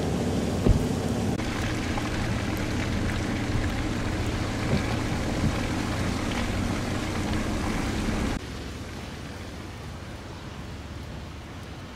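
Steady vehicle engine and road noise with a low hum, and one sharp thump about a second in. About eight seconds in it cuts suddenly to a quieter, even noise.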